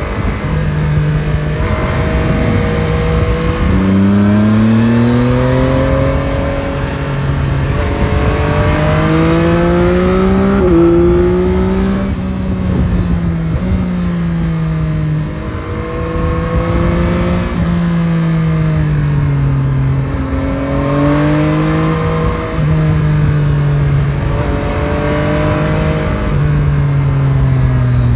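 Yamaha Tracer 9 GT's 890 cc crossplane three-cylinder engine, heard from the saddle, pulling up through the revs and dropping back again and again, with the pitch stepping at gear changes and falling off under engine braking. Wind rush runs underneath.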